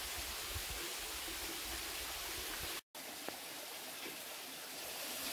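Steady rush of a stream's running water, with low wind puffs on the microphone in the first half. The sound drops out for a moment about halfway through, at a cut.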